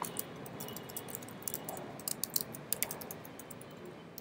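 Typing on a computer keyboard: a run of key clicks, sparse at first and coming faster from about a second and a half in, then thinning out near the end.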